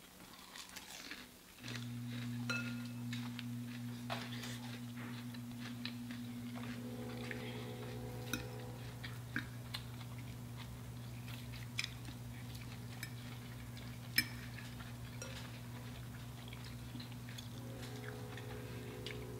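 Quiet chewing and scattered clicks of metal forks on glass plates, with one sharper clink about 14 seconds in. A steady low hum starts suddenly about two seconds in and continues underneath.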